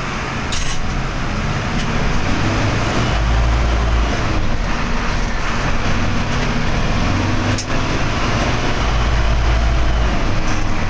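Diesel engine of a Hino AK front-engine bus roaring as the bus drives along, heard from inside the front of the cabin, its pitch stepping up and down as it pulls. A couple of sharp clicks sound over it, one about seven and a half seconds in.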